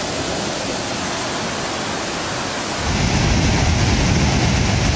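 Water rushing down a dam spillway in a steady, even hiss; about three seconds in it cuts to a louder, deeper rumble of muddy floodwater pouring over falls.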